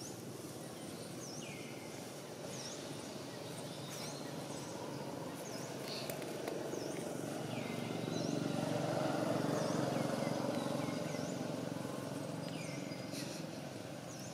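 Outdoor ambience: a steady low rumble that swells for a few seconds past the middle and eases off again, with a short, high chirp repeating about once a second above it.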